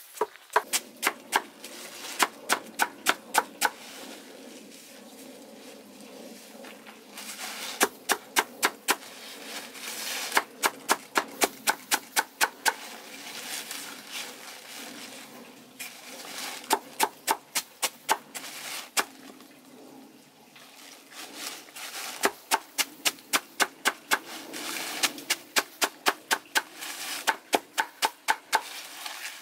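Large knife chopping a pile of leafy greens on a board, in quick runs of sharp knocks at about four strokes a second, broken by short pauses.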